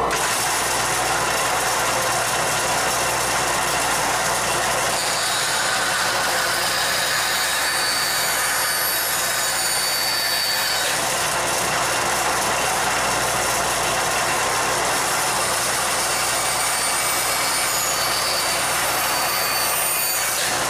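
Band saw running with its blade cutting a curved edge through wooden boards. A steady motor hum sits under the loud cutting noise, with faint high whines that come and go as the wood is fed.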